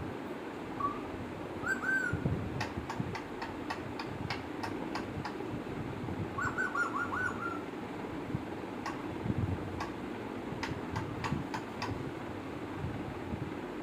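Pet parrot whistling: a short note, then an arched whistle, and about six seconds in a quick run of about five whistled notes. Sharp clicks are scattered throughout.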